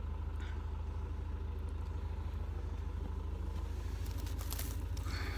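An engine idling steadily, a low even drone with a fine regular pulse. Near the end a brief rustle as the hay in an opened, plastic-wrapped bale is handled.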